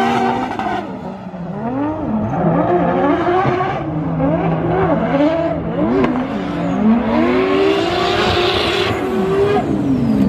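Drift cars' engines revving hard, the pitch rising and falling again and again as the throttle is worked through a tandem slide, with tires squealing on the pavement.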